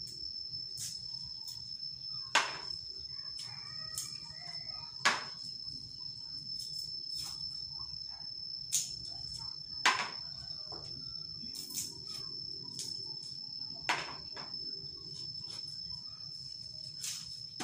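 Hand-peeling garlic and shallots: scattered sharp clicks and taps as cloves and skins are handled and dropped, about six of them louder than the rest. Under them run a steady high whine and a low hum.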